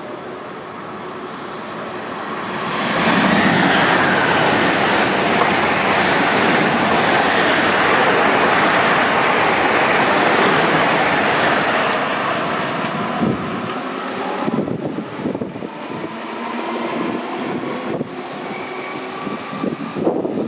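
ICE high-speed train running through the station without stopping. A rushing roar builds over about three seconds, holds steady for about nine, then fades into a run of knocks and clicks from its wheels on the rails.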